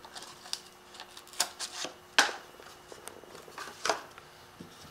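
A cut piece of drywall being handled: a few light knocks and scrapes, the sharpest about two seconds in.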